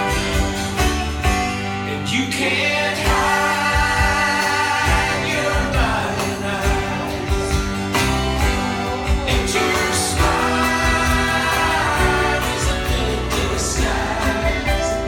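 Music with singing voices over a steady beat and bass line.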